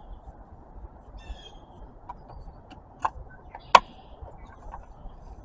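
Quiet hands-on work: two sharp clicks or taps, the second and louder one a little past the middle, over a faint steady background with a brief bird chirp about a second in.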